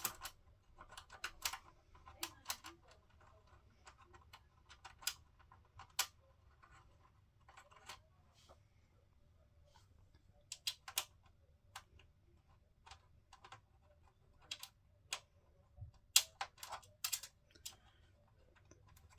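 Irregular small clicks and taps of screws being handled and fitted into a PC power supply's mounting holes against the sheet-metal case, with a sharper cluster of clicks about sixteen seconds in.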